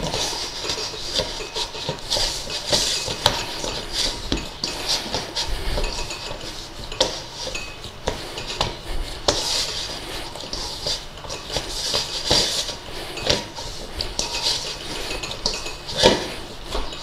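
Hands pressing and pushing shortcrust pastry dough around a stainless steel mixing bowl. The metal bowl scrapes and clinks irregularly, with a sharper knock near the end.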